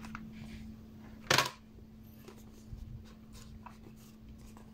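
Hands handling cardboard phone boxes: soft rustles and light taps, with one louder knock about a second and a half in, over a faint steady hum.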